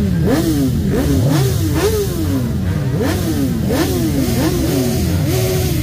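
Motorcycle engines revving in repeated throttle blips: the pitch jumps up and slides back down again and again, sometimes overlapping. Near the end one rev is held for a moment before falling away.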